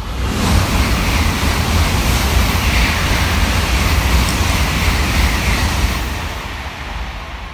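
N700-series Shinkansen bullet train passing at high speed. A loud rush of air and rumbling wheels on rail starts suddenly, holds steady for about six seconds, then fades as the tail runs into the tunnel.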